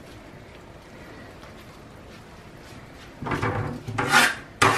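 Kitchenware being handled: after about three seconds of quiet steady background, a run of short scrapes and knocks of a pan and utensils being moved, the last one the loudest and sharpest.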